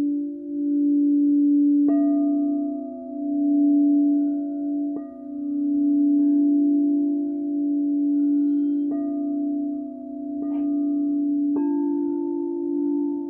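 Frosted crystal singing bowls ringing: a low sustained tone that swells and fades in slow beats, struck four times with a mallet, each strike adding higher ringing tones above it.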